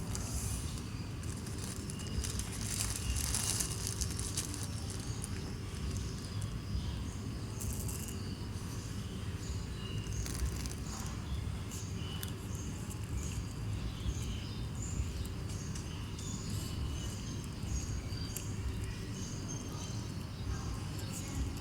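Close-up eating sounds: quick, irregular small clicks and crunches of chewing over a low steady background hum.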